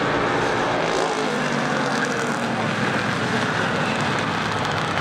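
A pack of street stock race cars running at speed around the oval, their engines blending into one loud, steady drone.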